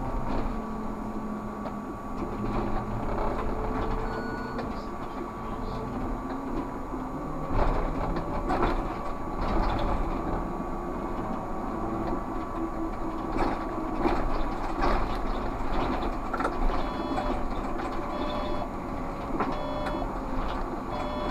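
Škoda 30Tr SOR trolleybus running on the road, heard from the cab: a steady electric drive hum whose tones slowly shift in pitch with speed, over road noise, with occasional short clacks.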